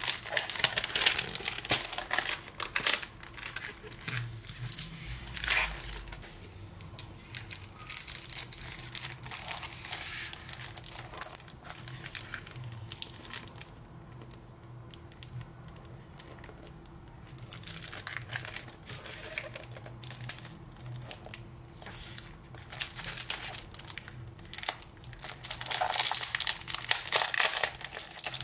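Clear plastic packaging sleeves around packs of scrapbooking die-cut paper crinkling as they are handled, in uneven bursts. The crinkling is loudest at the start and again near the end, when a sleeve is pulled open, and quieter in between.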